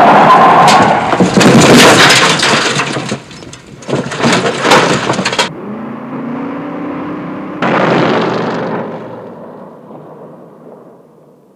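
Cars speeding on a gravel dirt road: loud tyre and gravel noise with many sharp cracks of stones, cutting off suddenly about five and a half seconds in. Then comes the steady engine note of a car heard from inside its cabin, rising slightly in pitch, and then a car's noise that fades steadily away into the distance.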